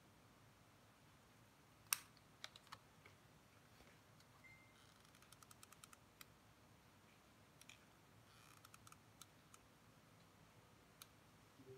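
Faint clicks and taps of scissors snipping thin card and of card pieces and tools being handled on a tabletop: a sharp click about two seconds in, a quick run of small clicks around five to six seconds, and a few scattered taps later.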